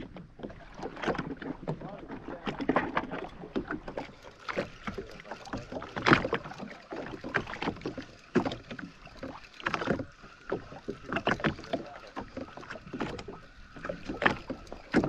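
Water slapping and splashing irregularly against the hull of a drifting Sea-Doo Fish Pro jet ski, with splashes from a hooked yellowtail snapper being reeled in at the surface beside it.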